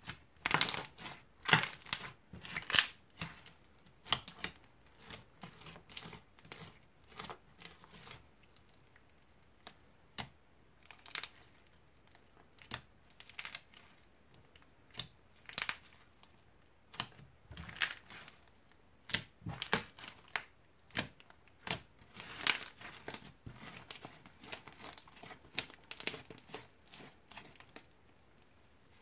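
Green crunchy slime full of small beads being kneaded, squeezed and stretched by hand, giving irregular clusters of sharp crackles and pops.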